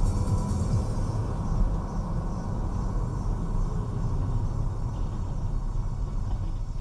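Steady low rumble of a vehicle's engine and road noise, with no distinct impact.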